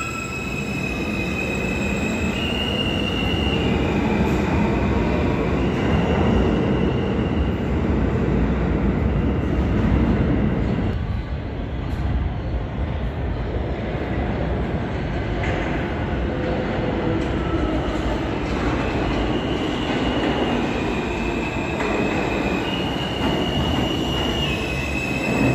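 R160 New York City Subway trains: one rumbles out of the station with a high whine that steps between two pitches. The noise dips about eleven seconds in, then another R160 pulls in on the near track, its rumble and the same stepping high whine building toward the end.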